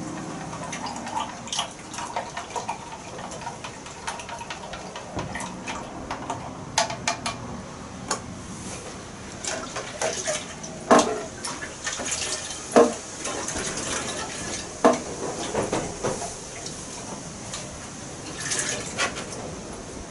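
A spoon clinks and scrapes inside a glass jar as molasses is stirred up with a little water to dissolve it, with splashing and dripping of liquid. A few sharp knocks of the glass jar come in the middle.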